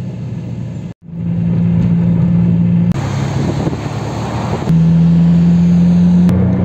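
Steady engine and road drone from inside a moving car, in several short clips cut together. About three seconds in comes a short stretch of broader traffic noise from a multi-lane highway seen from above.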